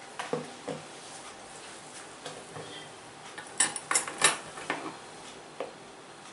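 Hair cracking during a head massage: locks of hair twisted and snapped, giving sharp cracks. A few softer clicks and knocks come first, then a quick run of three loud cracks about halfway through.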